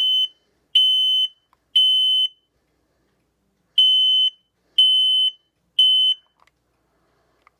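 Firex i4618 smoke alarm sounding its loud, high-pitched temporal-three alarm: three half-second beeps about a second apart, a pause, then three more.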